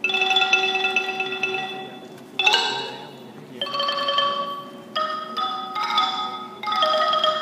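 Ranat ek, the Thai boat-shaped wooden xylophone, played in phrases of rapid rolled notes. Each phrase opens with a sharp strike and dies away; in the second half the phrases come quickly one after another.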